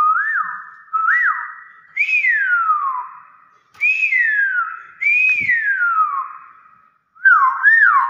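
Hill myna whistling: a series of about six loud whistles, roughly one a second, each a quick upward note that falls away in a long downward glide.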